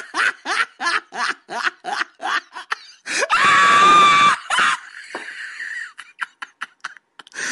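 A young child laughing in quick short bursts, then letting out a loud high-pitched squeal about three seconds in, followed by a few more short laughs.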